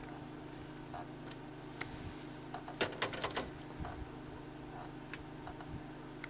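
A vehicle engine idling steadily with a low hum. About three seconds in comes a quick run of sharp clicks, with a few single clicks before and after.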